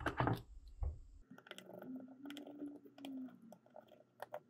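Small screws being undone with a precision screwdriver from the circuit board inside a plastic digital luggage scale: faint scattered clicks and light scraping of the driver and screws, with two sharper clicks near the end.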